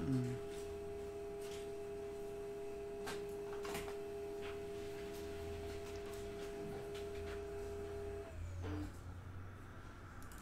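A steady single-pitched hum with fainter higher overtones, cutting off about eight seconds in, over a low background hum and scattered light clicks.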